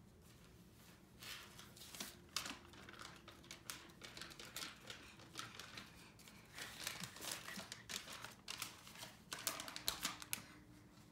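Sheets of paper rustling and crinkling in irregular bursts as a toddler shakes and waves them. The rustling starts about a second in and stops shortly before the end.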